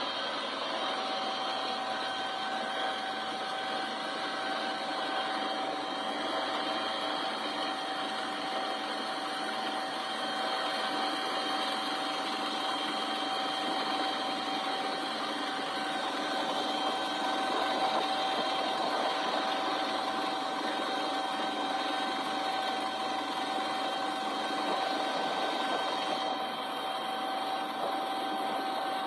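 A steady machine noise with a constant whine.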